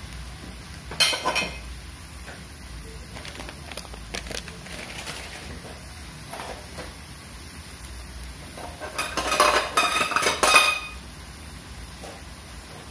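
Metal pots, pans and utensils clinking and clattering in a kitchen: a short clatter about a second in, then a longer run of clinks with some ringing, near the end.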